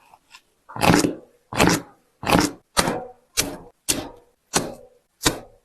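A series of about eight sharp knocks or strikes, one roughly every half second or so, each dying away quickly.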